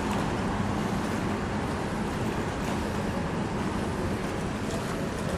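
Steady low hum under an even rushing noise: the ambience on the deck of the AIDAblu cruise ship, with no separate event standing out.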